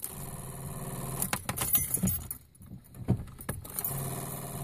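Repeated clicking as the ignition key is turned on a 1998 Volkswagen Jetta TDI that will not crank, over a faint low hum. The repetitive clicking of a no-start, which the owner puts down to a dying battery.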